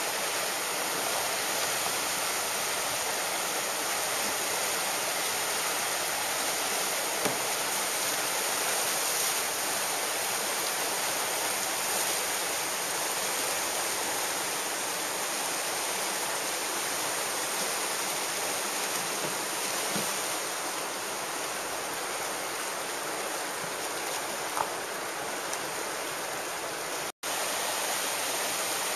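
Whitewater rapids rushing steadily. The sound cuts out for an instant near the end.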